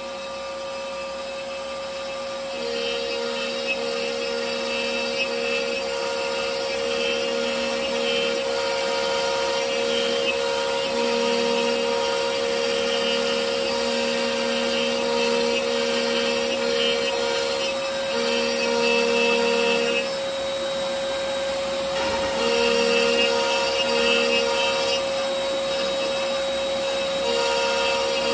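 CNC router cutting maze channels into a wooden board. The spindle runs with a steady high tone, and the cutting noise comes and goes in stretches of a second or two as the bit moves along the maze paths.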